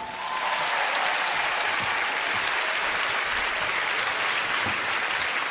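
Large audience applauding steadily at the end of a song.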